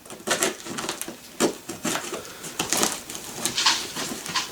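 Cardboard shipping box being cut open with a knife: irregular scraping and crackling strokes as the blade slices through tape and cardboard.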